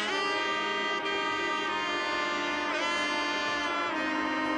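Background music: a melody of long held notes that changes every second or so, with a couple of brief sliding pitch bends.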